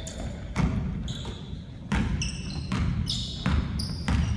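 Basketball being dribbled on a hardwood gym floor: a run of thuds, roughly two a second and not quite even, ringing in the hall. Short high squeaks from sneakers on the court come in between.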